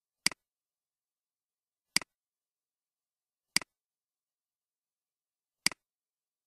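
Four computer mouse clicks, spaced about one and a half to two seconds apart. Each is a sharp double tick of the button being pressed and released.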